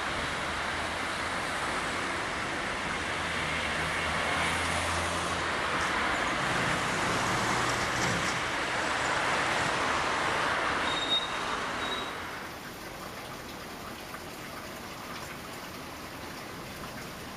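Steady road traffic noise with a vehicle engine humming in the first few seconds. About twelve seconds in it drops to a much quieter outdoor background.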